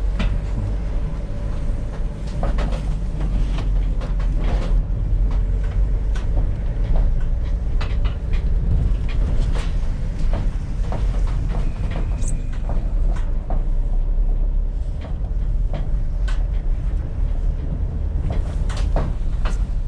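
Van on the move with a steady low engine and road rumble, and loose scrap metal in the back rattling and clanking frequently.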